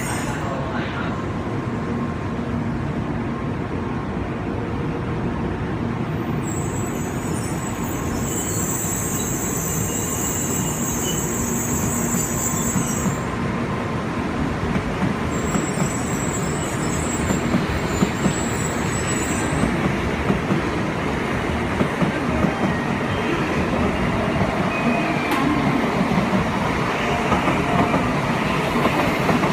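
A Shinkansen train moving along the platform track: a steady rumble of wheels on rail that grows louder through the second half, with scattered sharp clicks over the joints.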